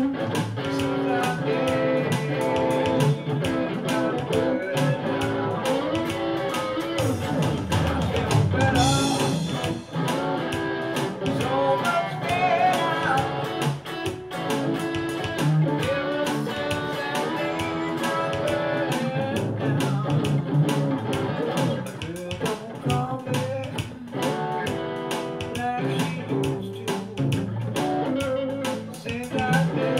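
Electric guitar playing an instrumental gospel shuffle over a steady beat.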